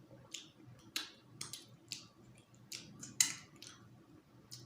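Close-up eating sounds: irregular mouth smacks and sucking clicks, about a dozen, the loudest a little past three seconds in, from eating the marrow out of a meat bone.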